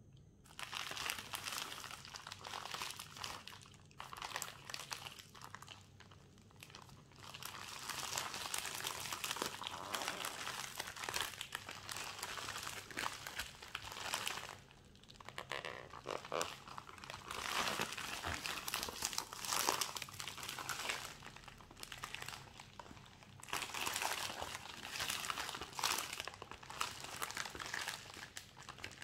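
Plastic packaging crinkling as it is handled and pulled off a product box, in stretches broken by a few short pauses.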